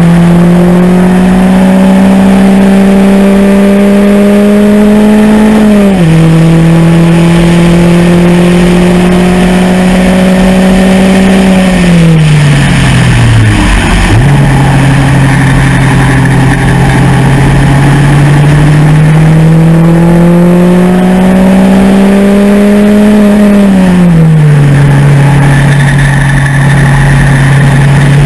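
MEV Rocket's engine at full throttle on track, heard from the open cockpit: its note climbs, drops sharply at an upshift about 6 s in, and climbs again. It falls away as the car slows twice, about halfway through and again near the end, picking up and climbing once more in between.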